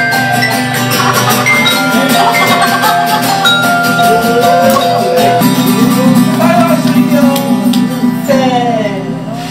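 Sound blocks, metal tone bars on wooden blocks, struck with a mallet and ringing out held notes, over a low steady accompaniment; singing joins in about halfway through.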